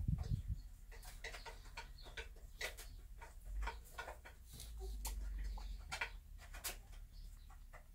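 Irregular light clicks and crackles of dry grass and hay nesting material as a bantam hen shifts in her nest, a few a second, with a low rumble in the middle.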